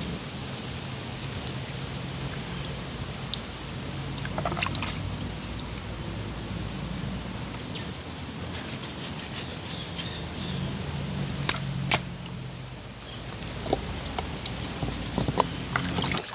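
Small knife clicks and knocks as raw chicken pieces are cut up by hand over a plastic bowl, over a steady outdoor hiss and a low hum that comes and goes.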